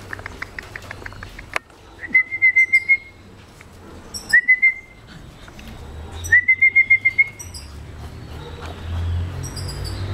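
A high trilled whistle, sounded three times about two seconds apart, each time rising briefly and then warbling at one pitch; the first and last run about a second, the middle one shorter. Fainter, higher bird chirps come in short groups alongside, and a quick run of light clicks is heard in the first second and a half.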